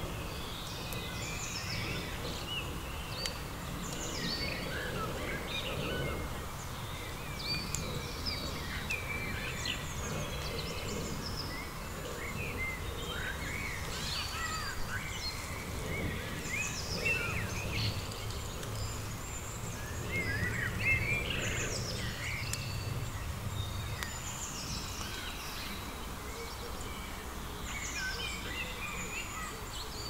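Songbirds singing: many short, quick chirps and whistles, scattered throughout, over a steady low background noise.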